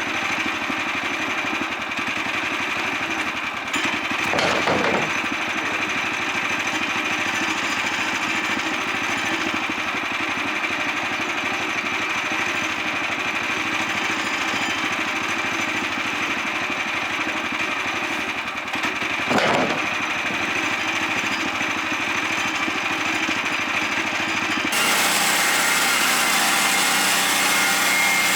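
The gasoline engine of a Woodland Mills HM126 portable bandsaw mill running steadily while the mill edges the bark off live-edge white pine boards. There are two short louder bursts, about four seconds and nineteen seconds in. Near the end the sound suddenly turns brighter and a little louder.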